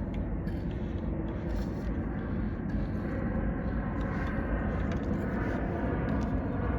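Tecumseh 6.5 hp mower engine on a Toro Personal Pace running steadily after gas was poured into its carburetor, which the owner says needs cleaning.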